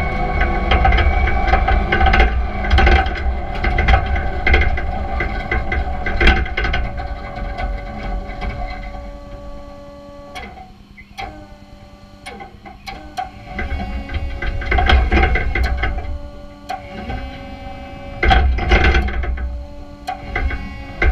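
Clark electric forklift's drive motor and controller whining and buzzing as it strains against a drive wheel that is binding. Its pitch slides up and down twice, dropping quieter, with clicking throughout. The truck wants to move but the wheel sticks.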